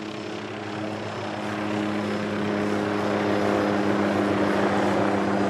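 Helicopter flying overhead: a steady, even-pitched drone of rotor and engine that grows louder over the first couple of seconds as it comes closer.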